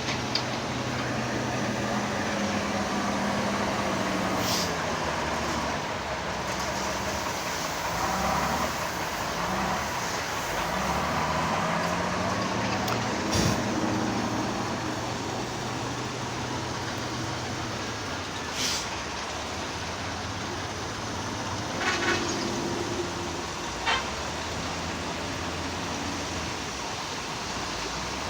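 Heavy diesel engine of earthmoving machinery running under load, its pitch rising and falling as it revs, with several sharp knocks or clanks scattered through.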